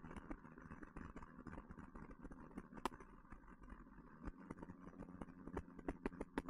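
1969 Alfa Romeo Spider's twin-cam four-cylinder engine running faintly as the open car drives along, through its Alfaholics exhaust, with many scattered sharp clicks over it.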